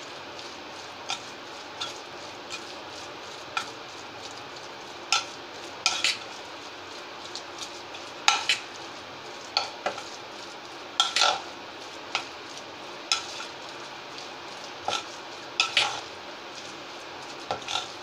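Batter of semolina and curd being mixed by hand in a stainless steel bowl: soft working of the thick mix, broken by irregular sharp clinks and knocks from the steel bowl, about one a second.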